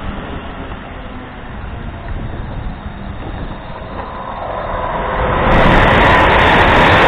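A London Midland Class 350 electric multiple unit rumbling past at low speed, then a Virgin Class 390 Pendolino electric train running through on the fast line: its rushing noise grows from about four seconds in and is loud for the last second and a half.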